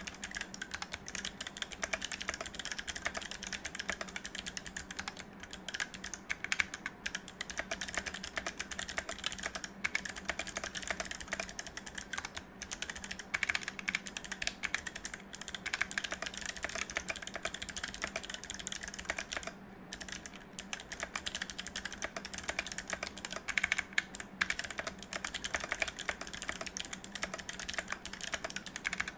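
Mechanical keyboard with Kailh Box Navy clicky switches on a steel plate in an acrylic case, with GMK keycaps, typed on continuously: a fast, dense stream of crisp keystroke clicks with a few short pauses, the clearest about twenty seconds in.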